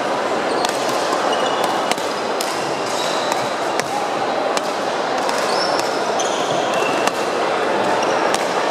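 Badminton rackets striking shuttlecocks, sharp cracks at irregular intervals, with sneakers squeaking briefly on the court floor, over the steady din of a busy sports hall.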